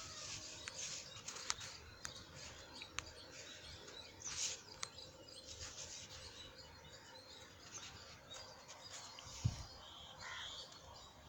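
Faint background with scattered light clicks and faint high chirps, like small birds calling in the distance.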